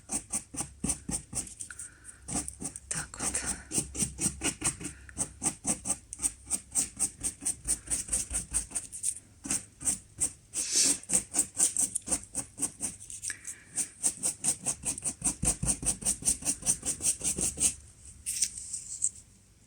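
Paintbrush swept rapidly back and forth over a decorative moulding in dry-brush strokes, with the bristles nearly dry of white paint. It makes a scratchy brushing at about five strokes a second that stops near the end.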